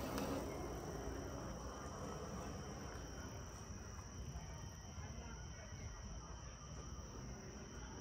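Crickets chirring in a steady, continuous high-pitched chorus over a low background rumble.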